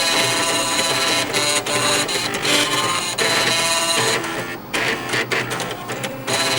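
Floppy disk drives playing a melody, their head stepper motors buzzing at changing musical pitches.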